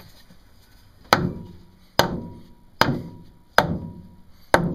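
Five hard hammer blows, a little under a second apart, striking the old mahogany-and-fiberglass mast step to try to break it free where it is stuck tight.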